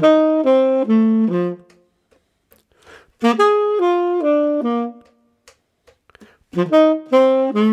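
Tenor saxophone playing three short phrases of arpeggiated notes, each about a second and a half long with pauses between them. The notes are the root, third, fifth and seventh of a G7 chord.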